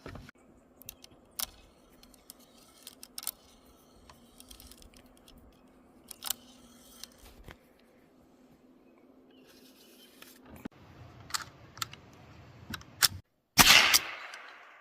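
Scattered small mechanical clicks of a Sears .22 LR rifle being handled, then one loud sharp report near the end, a .22 rifle shot, followed by a short fading echo.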